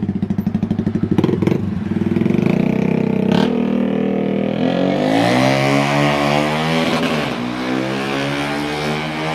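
Motorcycle engine through an Austin Racing aftermarket exhaust, idling with a throbbing beat. About halfway through it is revved up and held at higher revs, wavering slightly.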